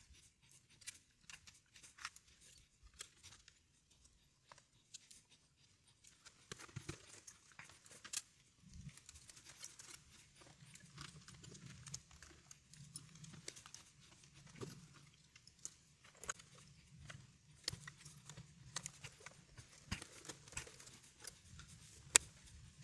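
Faint, scattered clicks and clacks of metal computer parts and screws being handled as a compact Macintosh is put back together. A faint low hum comes in about nine seconds in.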